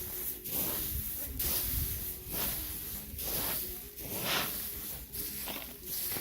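Rice stalks rustling and swishing in repeated strokes, about one a second, as the rice is harvested.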